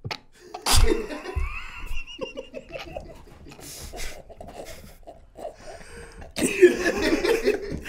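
Men laughing helplessly, wheezing and out of breath, at a joke, with a sharp knock about a second in; the laughter swells louder near the end.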